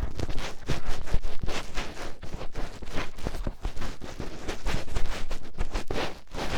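Finger ear-cleaning ASMR: a fingertip rubbing and digging deep into a microphone's ear, making close, scratchy rustling strokes several times a second in an irregular rhythm.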